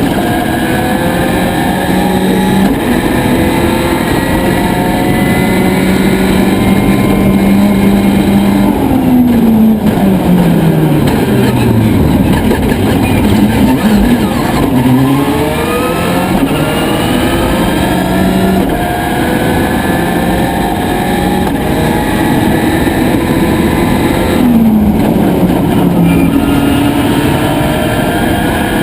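Subaru Impreza WRC rally car's turbocharged flat-four engine driven hard on a stage. The revs hold high, fall away about nine seconds in as the car slows and changes down, then climb again through the gears, with another short drop near the end.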